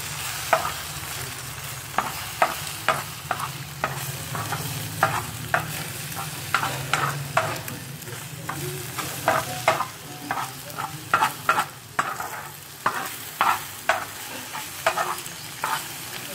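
Beaten egg frying and sizzling in a pan with mushroom masala while a metal spoon stirs it, knocking and scraping against the pan in many sharp, irregular clicks.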